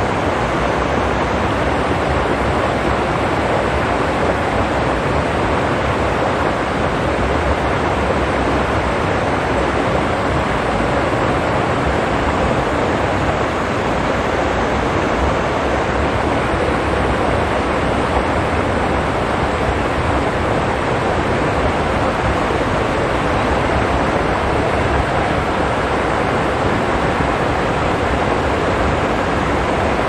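Steady rushing of a rocky mountain stream, an even hiss of water flowing over stones with no breaks.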